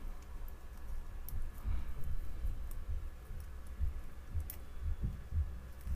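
Light clicks and dull knocks from small tools and parts being handled on a workbench, scattered and irregular, with a few sharper clicks.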